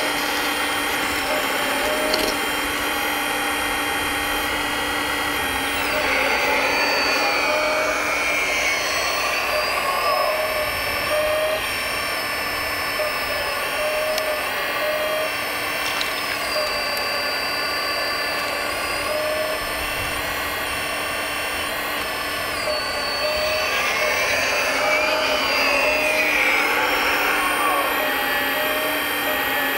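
Electric hydraulic pump and motors of a Kabolite K350 RC hydraulic excavator whining steadily as it digs. The pitch rises and falls twice as the boom and arm move under load, at about six seconds in and again near the end.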